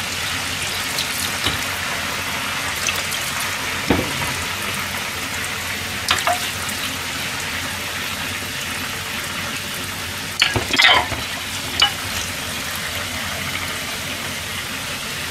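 Kitchen tap running steadily onto dishes in a stainless-steel sink as they are hand-washed, with a few clinks of crockery. The loudest clatter comes about ten to eleven seconds in.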